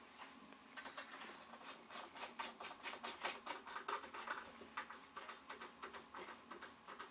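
Quiet, irregular run of light clicks and ticks, several a second, as a hand-turned Phillips screwdriver drives a screw into the corner of a games-table frame, left loose for now so the frame can still be adjusted.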